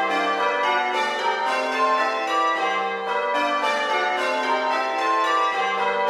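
Church bells ringing changes, English change ringing, recreated with bell-simulation software from recorded bells: an unbroken run of struck bell notes, one bell after another, each ringing on under the next.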